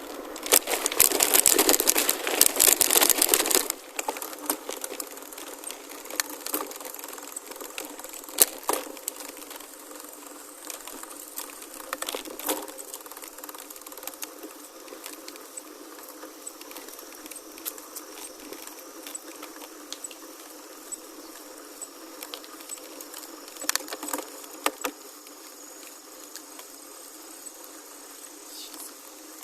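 Gravel bike riding on a gravel forest road: a loud stretch of tyre and wind noise for the first few seconds, then quieter rolling with scattered clicks and rattles. Insects buzz and chirp faintly throughout, with a row of high regular chirps in the middle.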